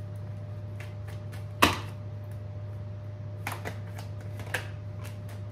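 A deck of tarot cards being shuffled by hand: scattered light snaps and taps of the cards, with one sharper snap about a second and a half in and a few more around four seconds in.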